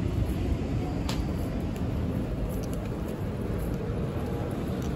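City street ambience: a steady low rumble of road traffic, with a single sharp click about a second in.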